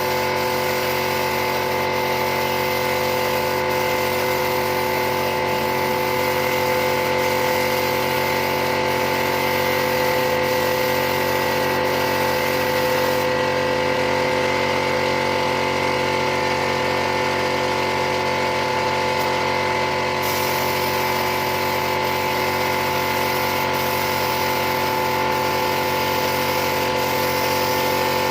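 A machine running steadily, giving an unchanging hum at a constant pitch, with faint regular ticks about every second and a half to two seconds.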